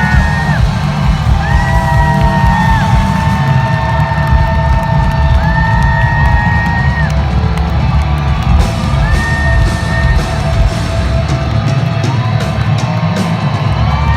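Loud live rock music played through a concert PA, recorded from the audience: sustained high notes held over heavy bass and drums, with the crowd cheering and yelling.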